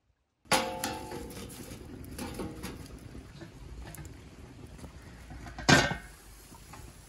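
A metal clang with a short ring about half a second in, then a wood fire crackling in a steel stove. Near six seconds a loud clank as a lidded cast-iron cauldron is set down on the stove.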